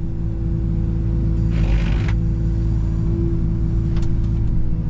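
Excavator running steadily under load, with a steady low hum and a constant whine over it. A brief rushing noise about a second and a half in, and a single click near the end.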